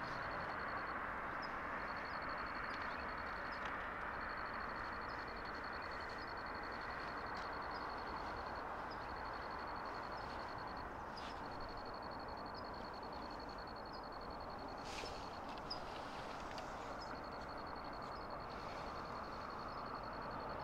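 Steady hum of distant road traffic. Over it, a high, rapidly pulsed trill repeats in runs of one to five seconds with short gaps.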